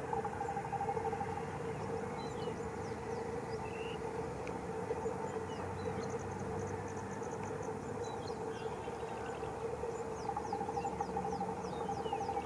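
Steady electric locomotive hum holding two even tones, the higher one dropping out about a second in and returning near the end, with small birds chirping and trilling over it.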